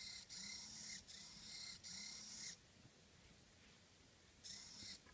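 Hitec HS-311 hobby servo whirring in short bursts, each a step of rotation as the button input changes the control signal's duty cycle. Four bursts in quick succession, a pause of about two seconds, then one more near the end.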